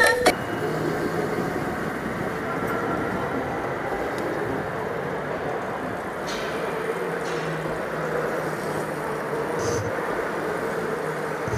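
Go-kart running on an indoor track, heard from the driver's seat: a steady rushing noise with a faint hum.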